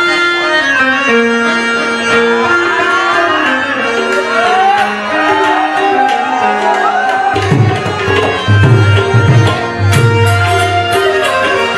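Instrumental Indian folk ringtone tune on a benjo (Indian banjo), with held accompanying notes and gliding ornaments in the melody. A hand-drum beat comes in a little past halfway.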